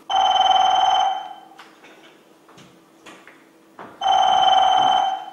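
Mobile phone ringing twice, each ring about a second long and about three seconds apart, a steady electronic ringtone with a rapid flutter.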